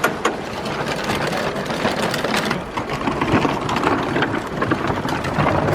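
A vehicle's motor running steadily with a low hum, some rattling and clicks.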